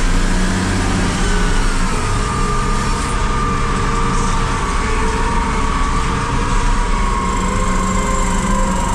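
Volvo L350H wheel loader's 16-litre six-cylinder diesel running steadily under work, heard from inside the cab, with a high whine that drops slightly in pitch over the first couple of seconds and then holds steady.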